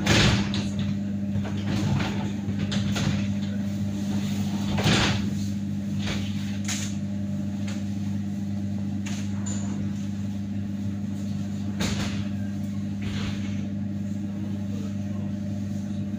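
Inside a slowly rolling passenger railway carriage: a steady low hum, with a few sharp knocks and rattles at irregular intervals, the loudest right at the start and about five seconds in.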